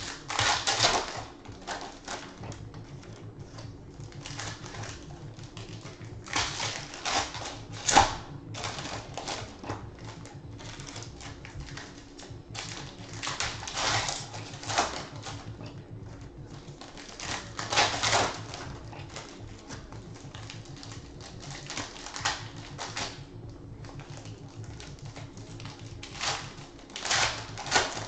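Foil trading-card pack wrappers crinkling while the cards inside are slid out and flicked through by hand, in irregular rustling bursts, the loudest about eight seconds in.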